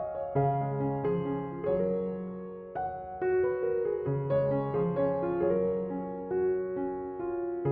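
Background piano music: a gentle melody of sustained notes over low bass notes.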